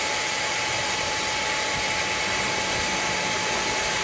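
Diesel-fired melting furnace's burner and blower running steadily: an even rushing hiss with a faint steady whine.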